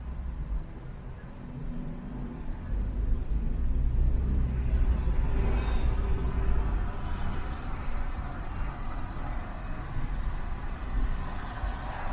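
Car driving through city traffic: a low road rumble with traffic noise around it, swelling for a few seconds in the middle and easing off again.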